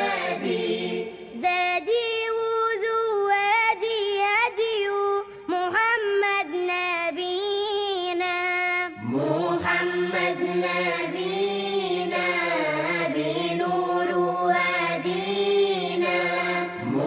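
Unaccompanied nasheed: voice-only Islamic devotional singing of a slow, ornamented melody with long held, wavering notes. A short break comes about nine seconds in, and a new phrase then starts low and rises.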